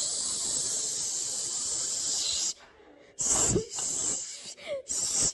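Steady hissing for about two and a half seconds, then two shorter hisses.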